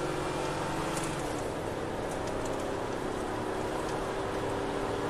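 Steady engine and road noise inside a moving patrol car's cabin, with a few faint ticks about a second in.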